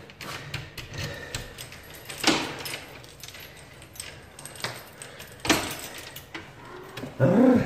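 Keys jangling and clicking at a flat's front door lock, with two sharper knocks about three seconds apart.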